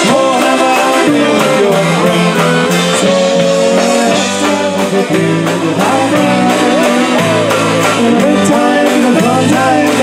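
Live polka band playing a lively tune on two accordions, drums and bass guitar, with a singer at the microphone.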